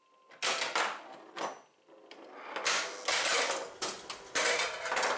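Electromechanical pinball machine clattering between balls: bursts of rapid relay and solenoid clicks and mechanism chatter as the machine resets for the next ball, the longest run about two and a half seconds in.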